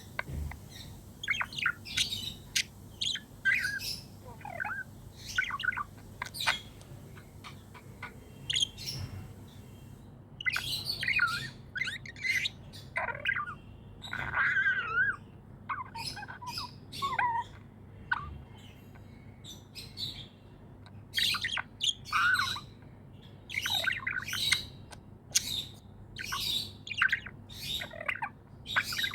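Pet budgerigars chirping, with many short, high chirps at an irregular pace and a longer warbling run about halfway through.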